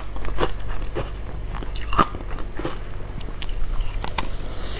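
Ice dusted with matcha powder being bitten and chewed close to a clip-on microphone: a run of irregular sharp crunches, the loudest about two seconds in.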